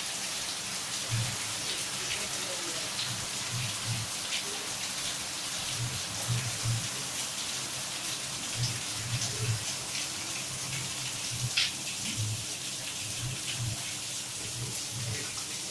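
Steady rain: a continuous hiss with many separate drops ticking on a surface and soft low knocks in between. One sharper drop lands about two-thirds of the way through.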